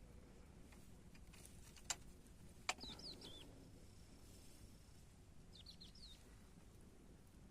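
A small bird giving short, quick chirps in two brief groups, about three seconds in and again about six seconds in, over faint background. Two sharp clicks, the loudest sounds, come about two seconds in and just before the first chirps.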